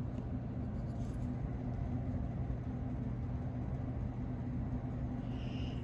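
Steady low background hum, with a brief faint higher-pitched sound near the end.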